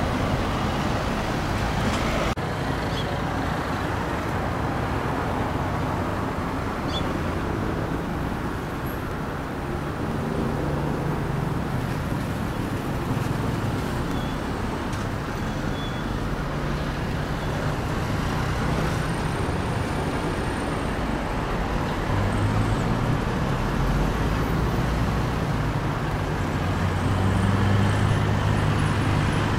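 Road traffic: a steady hum of vehicle engines and road noise, with low engine drones swelling and fading several times as vehicles pass.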